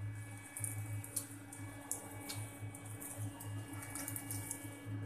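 A hand kneading soft wheat-flour and egg dough in a glass bowl: faint, irregular squelching and rubbing. A low steady hum runs underneath.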